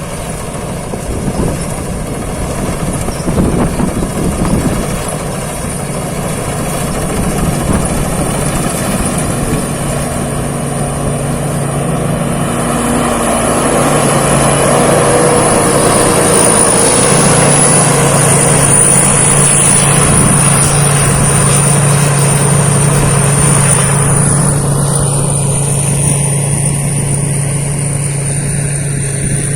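Thai Seng Yont rice combine harvester running steadily while harvesting a rice field, its engine holding a low even note that shifts slightly about halfway through, with a thin high whine over the mechanical noise.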